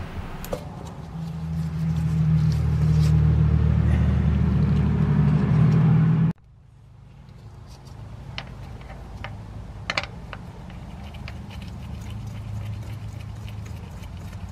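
A steady low motor hum swells about a second in and cuts off abruptly about six seconds in. After that a quieter hum continues, with a few light clicks, the sharpest about ten seconds in.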